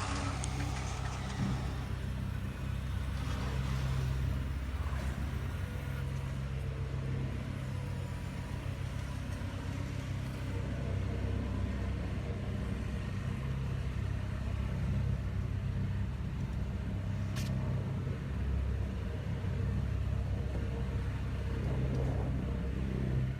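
A steady low engine-like rumble. A single short click comes about seventeen seconds in.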